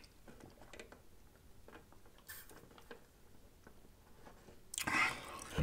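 Faint close-up sipping through a straw from a fountain-drink cup: scattered small soft clicks, then a louder breathy rush near the end.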